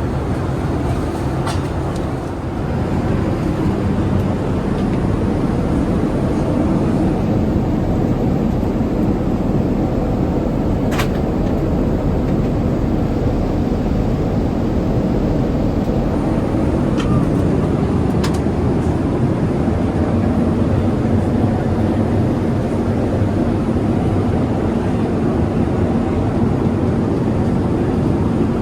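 Steady rumble of cabin noise inside a Boeing 787-8 Dreamliner: engine and airflow noise, with a few faint clicks.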